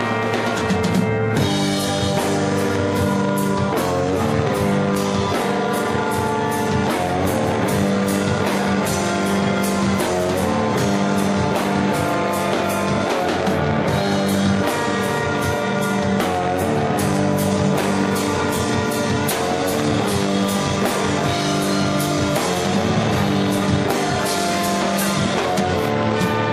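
Live rock music from an electric guitar and a drum kit playing together, with sustained guitar chords under a fast, continuous run of drum and cymbal hits.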